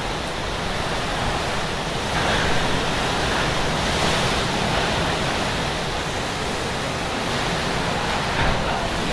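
Cyclone-force wind blowing with heavy rain: a loud, steady rushing noise that swells a couple of seconds in and eases off again.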